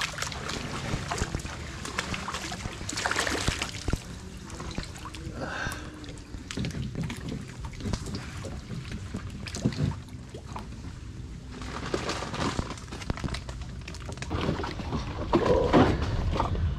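Shallow muddy water sloshing and splashing irregularly around a person's legs as they wade, with a few sharp knocks and louder splashing near the end.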